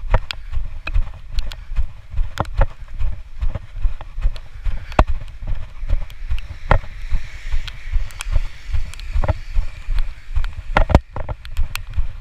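Footsteps and handling noise from a phone carried by someone walking on wet stone paving: low thumps about twice a second with scattered sharp clicks.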